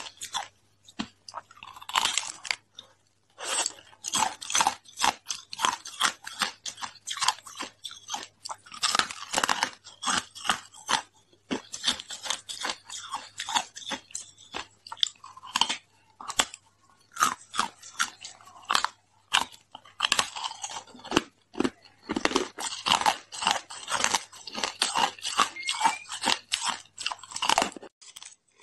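Hard frozen ice being bitten and chewed close to the mouth: rapid, irregular crunching and cracking with short pauses between bites. A faint steady low hum lies underneath and stops near the end.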